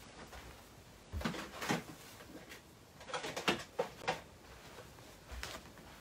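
Craft supplies being handled: several light knocks and rustles, as of a paper punch and card being picked up and set down.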